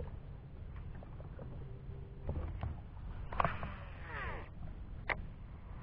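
Quiet sounds of fishing from a small boat: a low steady hum, a few light clicks, and a brief whirring in the middle as a baitcasting reel retrieves a topwater lure.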